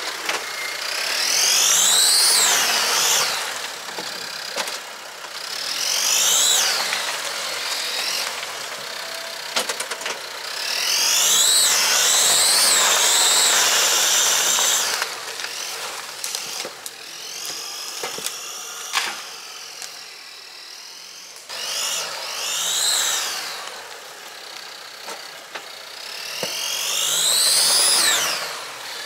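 An off-road vehicle working hard in deep mud: a high whine that rises and falls in pitch in about six surges, one every four to five seconds.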